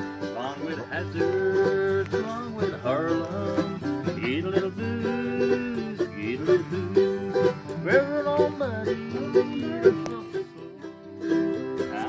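Background country-style acoustic music with plucked strings.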